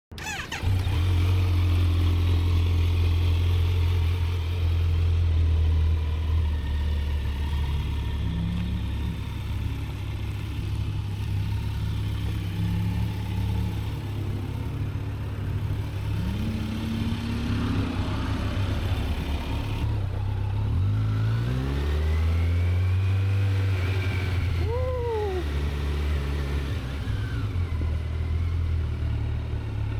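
Kawasaki Z900 inline-four engine on its stock exhaust, running steadily, with its pitch rising a few times as it is revved or accelerated.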